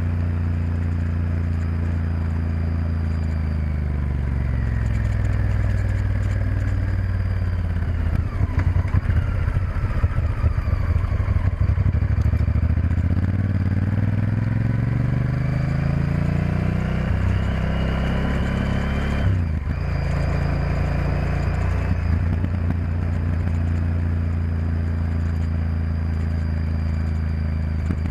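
Honda Varadero XL1000's V-twin engine heard from on board while riding. The engine note falls for the first several seconds, runs rough and uneven for a few seconds, then rises steadily, breaks off briefly at a gear change about two-thirds in, and settles into a lower, steady note.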